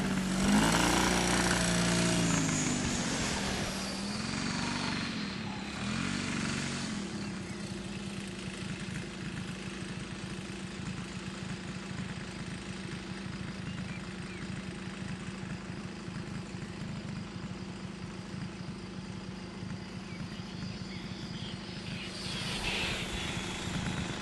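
Model aircraft engine and propeller droning, its pitch swinging up and down several times at first, then holding a steady tone. Near the end comes a rising and falling whoosh of air as the large-scale RC glider passes fast and low.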